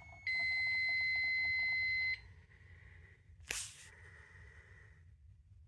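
One steady high-pitched electronic beep of about two seconds from a fire alarm panel's buzzer as the system is reset, cutting off sharply. A single sharp click follows about a second and a half later.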